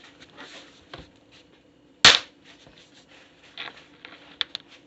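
A foot stamping down on a fidget toy, giving one sharp, loud pop about two seconds in, with a few faint taps and clicks around it.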